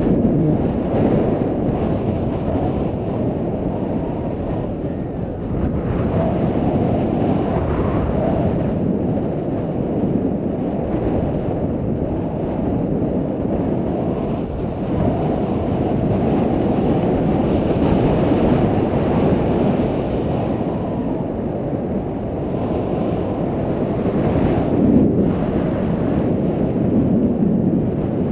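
Wind buffeting a GoPro's microphone: a loud, steady low rumble that swells and eases, with no clear tones.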